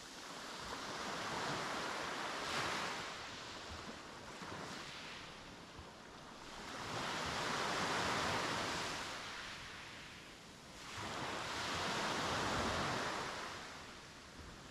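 Sea waves breaking on a beach, the surf rising and falling in three slow swells about five seconds apart.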